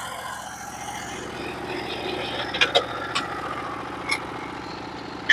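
Engine of a Norwood HD36v2 portable bandsaw mill running steadily, not yet cutting, with a few short sharp clicks about halfway through.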